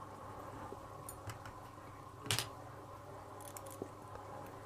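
Light metallic clicks and taps of a lock and small tools being handled. The loudest click is a little over two seconds in, and a few lighter ticks come near the end.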